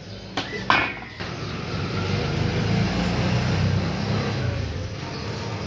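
A motor vehicle's engine passing close by, growing louder to a peak mid-way and then fading. Two short knocks are heard just before it.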